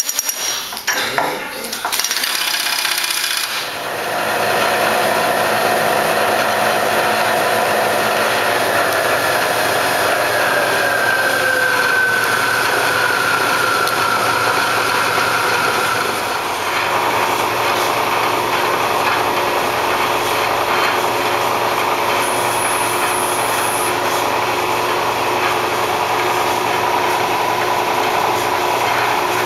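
A few knocks and clatter as a tool holder is handled at the spindle, then the 1995 Hurco CNC vertical mill's spindle runs with a steady whir. Its pitch slides down between about ten and sixteen seconds in, then holds.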